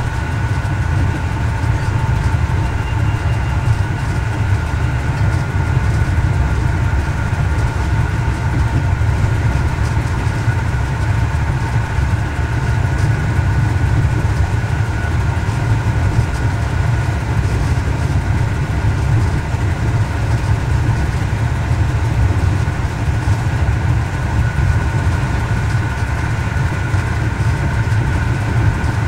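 Y1 railcar, re-engined with Volvo bus diesel engines, heard from the driver's cab while running along the line: a steady low engine and running drone with a constant high whine over it.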